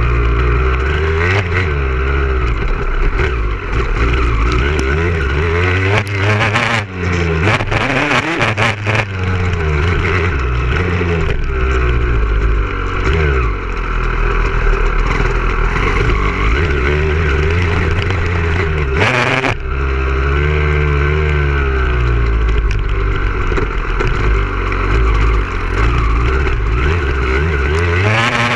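Motocross bike engine heard onboard, its pitch rising and falling over and over as the throttle is worked on the track. There are short rushes of noise about seven to nine seconds in and again around nineteen seconds.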